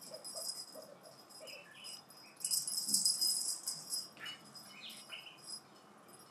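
Jingling and rattling of a kitten's dangling pom-pom bungee toy as she paws and swats at it, loudest for about a second and a half midway, with lighter ticks around it.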